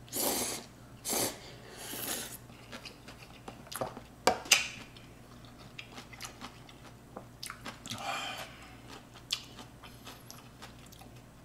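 Ramen noodles slurped in three quick, noisy pulls, then chewing with small wet clicks. A single sharp click about four and a half seconds in is the loudest moment, and there is a short noisy intake of breath or broth near eight seconds.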